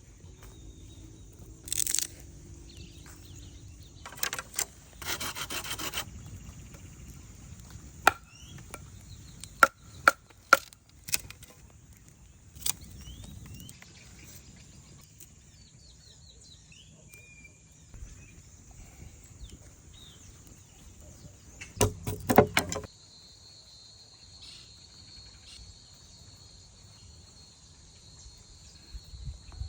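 Insects chirring steadily, with a second, lower steady chirr joining in the last quarter. Over it come a few sharp wooden knocks in the middle and short bursts of rustling and clatter, typical of wood being handled or chopped.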